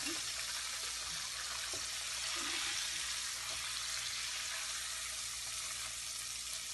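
Flour-coated chicken pieces deep-frying in hot oil in a pot: a steady hiss of bubbling oil, with a few faint knocks.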